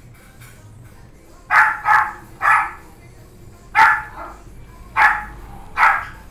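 Puppy barking: six short, high yaps, a quick pair and a third in the first half, then three single yaps about a second apart.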